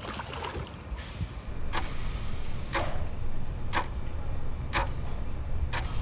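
Clock ticking, one tick about every second, starting a little under two seconds in, over a steady low rumble.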